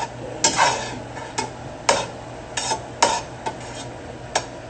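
Kitchen utensil clicking and scraping against cookware about seven times at irregular intervals, as food is stirred or moved around.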